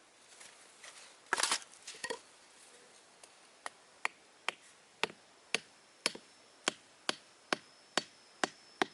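Sharp, even knocks of a tool striking something hard, about two a second, after a brief scuffle of noise near the start. A faint thin high tone comes in near the end.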